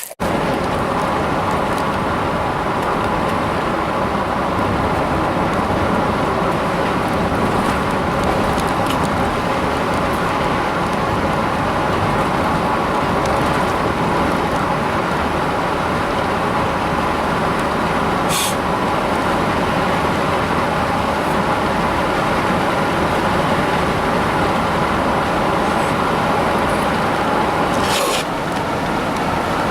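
A small fishing boat's motor running steadily while under way, its steady whine over a constant rush of wind and water noise.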